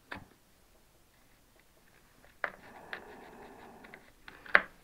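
Hand work on a piece of soft wood: a sharp knock about two and a half seconds in, then about two seconds of steady scraping, and a louder sharp knock near the end.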